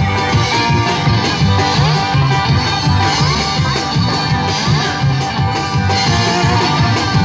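Live instrumental passage from a trio of guitar, plucked upright bass and drum kit. The guitar plays a lead line with sliding notes over a moving bass line and a steady drum beat.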